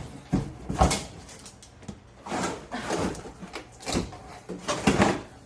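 Cookware being unpacked from its box: a series of short knocks, scrapes and rustles of handling.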